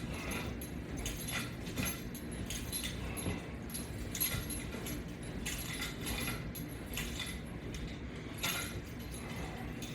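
Faint, irregular clinks and rustles, about one every half second to a second, from exercise straps and their metal clips on a latch bar as they are pulled through a set of crunches.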